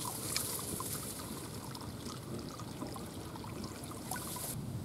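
Water trickling and dribbling in a shallow muddy pool, with small drips throughout and a brief splashing rush about four seconds in as a bowl is dipped in to scoop water.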